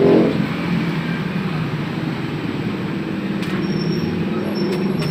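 Steady low rumble of a vehicle engine running, with a few faint clicks near the end.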